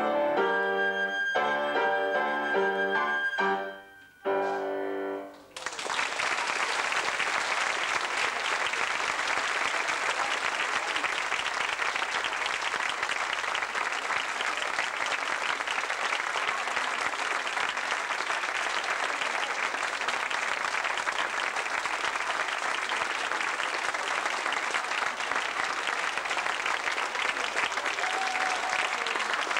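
Flute and grand piano play the last notes of a piece, with a short gap and a final brief chord about four to five seconds in. Then the audience applauds steadily with many hands.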